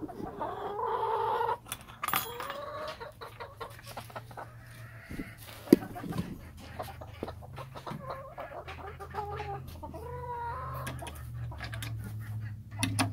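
Backyard hens clucking and giving several drawn-out calls, with small knocks and shuffling throughout and one sharp knock about six seconds in. A low steady hum runs underneath.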